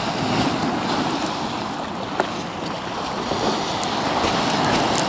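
Surf breaking and washing over a boulder beach, with wind buffeting the microphone and a few light clicks.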